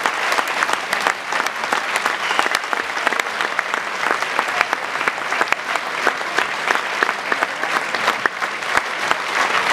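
Crowd in a table tennis hall applauding a finished point: many hands clapping steadily.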